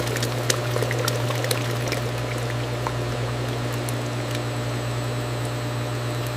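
Liquid pouring or flowing over a steady low machine hum, with scattered light clicks and crackles.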